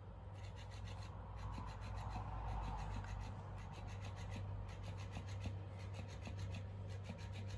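Electric flopping fish cat toy wagging its tail on a rug: a small motor whirring, with rapid, even ticking and the fabric fish rubbing on the carpet, in runs broken by short pauses.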